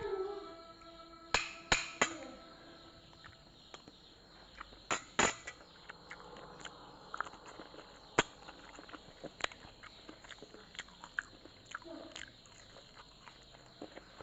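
Eating sounds: scattered sharp clicks and crunches at irregular intervals, with a few louder ones near the start and middle.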